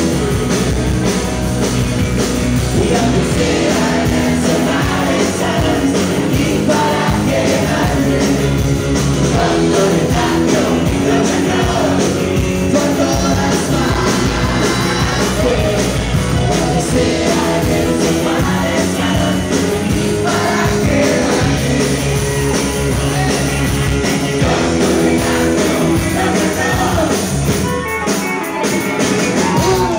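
Live rock and roll band playing: electric guitars and drums with a man singing lead into the microphone.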